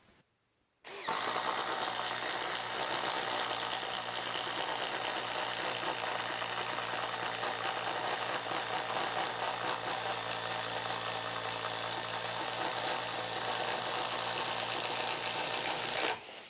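DeWalt Atomic compact impact driver hammering under load as it bores a 1½-inch spade bit through a wooden beam. It starts about a second in, runs steadily, and stops shortly before the end.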